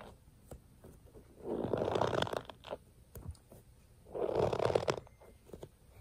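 Squishy stress ball squeezed in the hand close to the microphone: two raspy squishing bursts, one about a second and a half in and another about four seconds in, with faint crackles between.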